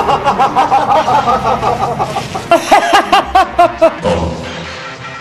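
A man laughing in a long, fast run of 'ha-ha-ha', louder and sharper from about halfway through, stopping about four seconds in.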